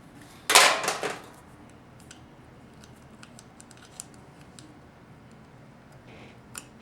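Metal transmission pump parts clattering as they are handled on the bench: one loud burst of metallic rattling about half a second in, then a few faint light clicks.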